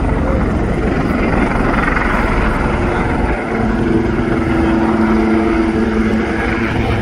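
Two Leonardo Wildcat HMA2 helicopters flying past in formation, with the rapid beat of their rotors and the whine of their twin turboshaft engines. A steady engine tone grows stronger about halfway through.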